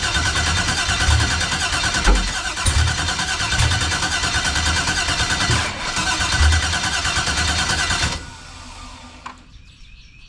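An LS V8 swapped into a 1989 Chevy cranking on its starter without starting: a steady starter whine with uneven low pulses as it tries to fire, and the cranking stops abruptly about eight seconds in. It is a no-start where the engine acts like it wants to run but never catches; the owner suspects a sensor signal or ignition timing.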